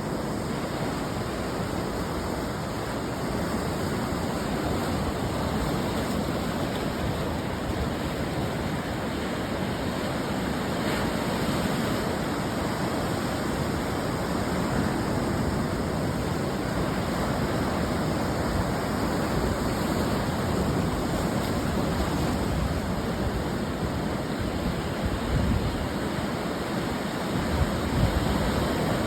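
Ocean surf breaking and washing onto the shore, a continuous steady hiss of water with a slightly louder surge near the end.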